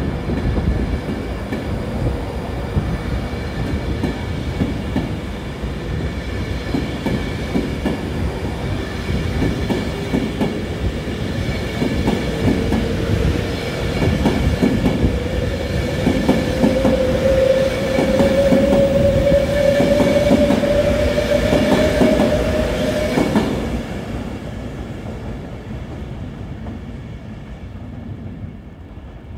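A train running through the station with wheels clicking over the rails. A single tone climbs slowly in pitch over about twelve seconds. A little before the end the sound drops off suddenly and fades away.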